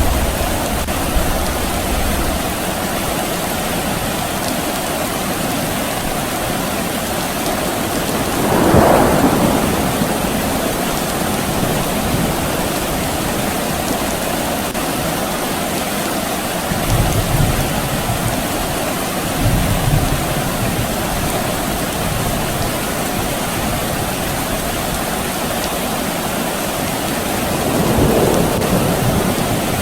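Steady rain falling, with distant thunder: low rumbles rise and fade about a third of the way in, twice around the middle, and again near the end.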